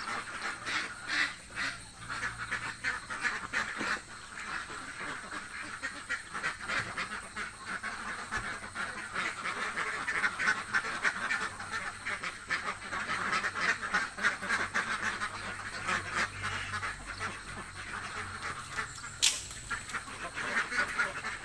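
A flock of domestic ducks quacking constantly, many calls overlapping in a busy chatter: hungry ducks calling for food. A single sharp click comes near the end.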